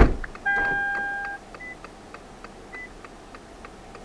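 A car door shuts with a loud thump, then an electronic beep sounds for nearly a second. After it comes a steady ticking, about three to four a second, like a turn-signal relay, with two short high beeps.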